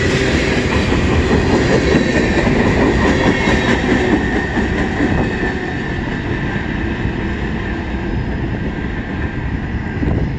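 Freight cars of a long mixed freight train, tank cars and lumber-loaded centerbeam flatcars, rolling past at close range: a steady rumble and clatter of steel wheels on the rails, with a thin high ringing tone running through it. It eases a little after about five seconds.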